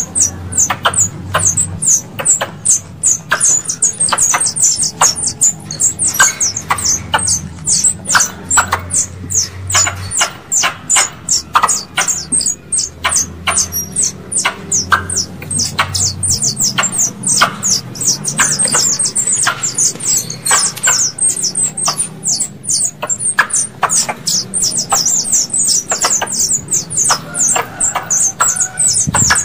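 Squirrel lure call: a continuous run of rapid, high-pitched squeaky chirps, about three or four a second. It is played to call squirrels in.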